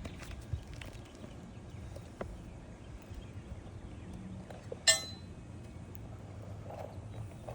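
A single sharp metallic clink with a short ring about five seconds in, from a metal roofing tool striking metal during shingle and nail work, among faint taps and handling noise on the shingles.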